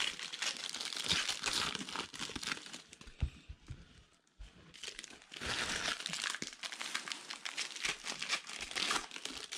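Foil wrappers of 2019 Diamond Kings baseball card packs crinkling as they are torn open and handled, with a short lull about four seconds in.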